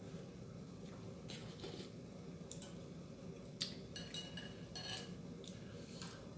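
Chopsticks and a spoon clicking and lightly clinking against a ceramic bowl, a handful of scattered taps, a few ringing briefly, over a steady low hum.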